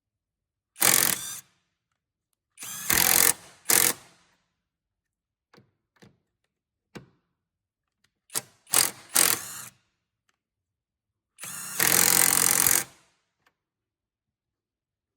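ONEVAN impact driver run in a series of short bursts, about seven in all, the longest lasting a second and a half near the end, with a few faint clicks between them.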